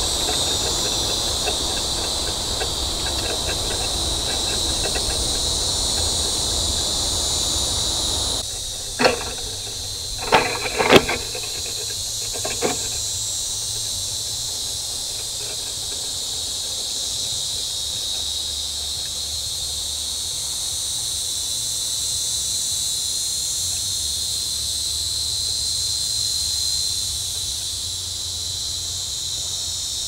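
Steady high insect chorus of crickets. About eight seconds in, a lower rushing noise cuts off suddenly. Then come four sharp knocks or bangs spread over about four seconds, the third the loudest.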